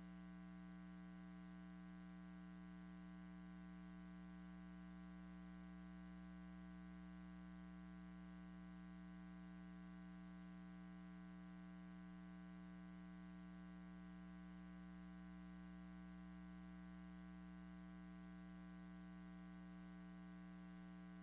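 Faint, steady electrical hum with a ladder of even overtones that never changes, over light hiss; nothing else is heard.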